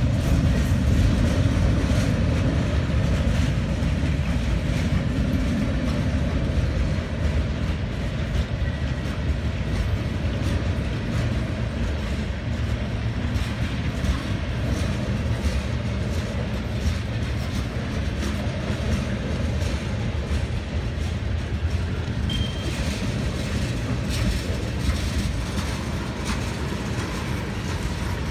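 Freight cars of a slow-moving CSX manifest train rolling past: a steady low rumble of wheels on rail with light clicking, slowly easing in level.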